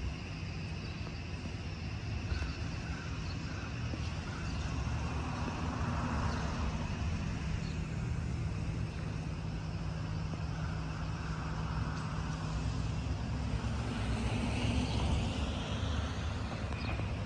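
Street traffic noise: a steady low rumble, with cars passing now and then.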